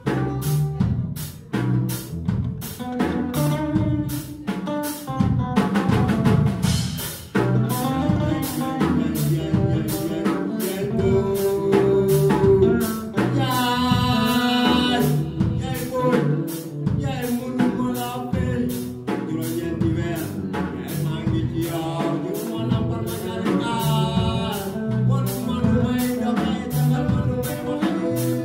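A live band playing: drum kit with a steady beat, electric bass and guitar, and a man singing into a microphone.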